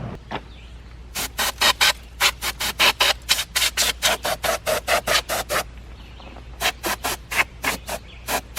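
Can of compressed air (air duster) fired in rapid short puffs, about four or five a second, blowing dust and debris off the engine top. The puffs pause for about a second, then start again near the end.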